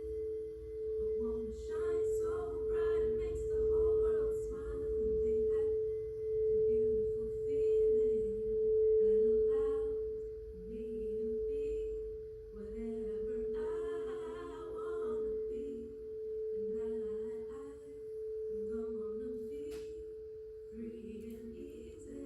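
A singing bowl ringing one steady, sustained tone that swells and fades over and over, with a fainter wavering melody lower down beneath it.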